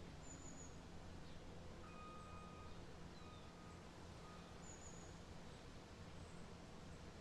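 Near silence: faint room tone with a steady low hum, and a few faint short chirps and brief whistle-like tones here and there.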